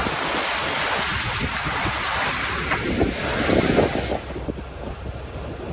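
Wind howling across the microphone and water splashing and rushing past the hull of a sailing catamaran moving fast, around 15 knots. About four seconds in the high hiss drops away sharply, leaving a lower, quieter rush of water.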